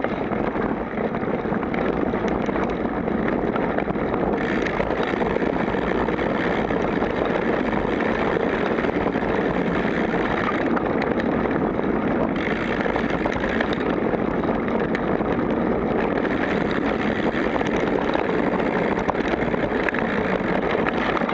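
Steady rushing noise of a mountain bike descending a dirt singletrack, heard from a camera mounted on the bike: wind on the microphone mixed with tyre and frame rattle.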